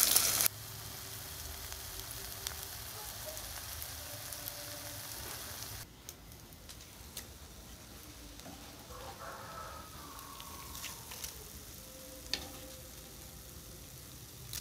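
Hot oil sizzling as battered banana-blossom strips fry in a small pan. It is loud at first, then drops sharply about half a second in to a much quieter steady hiss.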